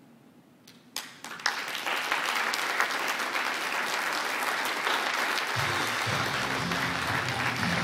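Theatre audience applause breaks out about a second in, building within a second and then holding steady. Music with low sustained tones comes in under it about five and a half seconds in.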